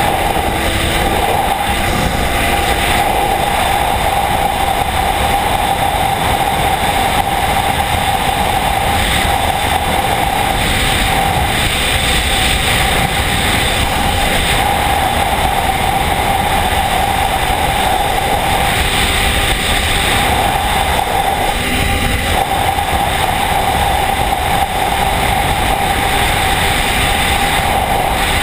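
Arctic Cat ZR4000RR snowmobile running steadily while riding across lake ice, its engine and 90-stud track together with rushing wind.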